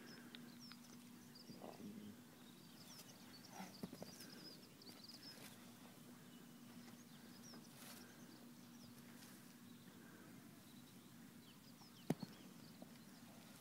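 Quiet open-air ambience: faint, scattered bird chirps over a low steady hum. One sharp knock comes about twelve seconds in.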